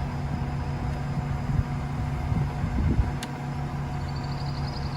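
Peterbilt McNeilus concrete mixer truck's diesel engine running steadily, with a few heavier rumbles around the middle and a single sharp click just after that.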